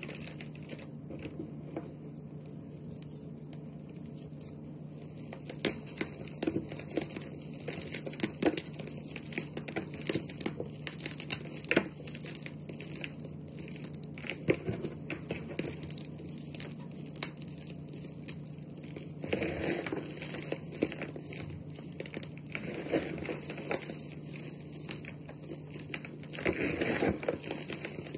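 Reformed gym chalk mixed with glitter being crumbled and crushed by hand: dry crunching and crisp crackling as chunks break and powder is squeezed. Softer for the first few seconds, then dense crackles, with heavier crunching squeezes a few times near the end.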